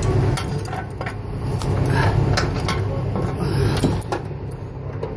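Scattered clicks and knocks of handling against steel scaffold frames close to the microphone, over a steady low drone; the knocking thins out after about four seconds.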